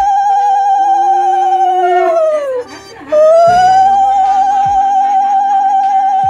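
Background music: two long held notes with a steady vibrato, each sliding down in pitch at its end, with a short break between them. Steady lower accompaniment and bass notes run underneath.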